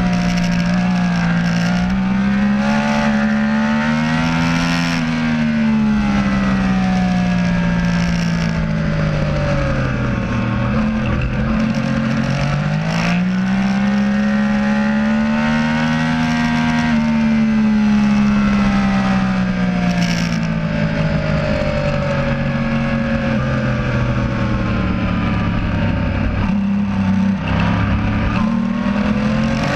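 Sport motorcycle engine heard from the bike's own onboard camera, its pitch rising under throttle and falling off into the bends in two long sweeps, then climbing again near the end, over steady wind noise.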